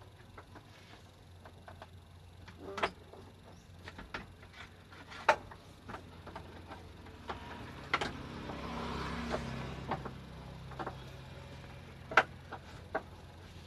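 Hands working on wiring and parts behind a truck's dashboard: scattered sharp clicks and knocks, a few of them louder, over a low steady hum. Cloth rubs against the microphone for a couple of seconds just past the middle.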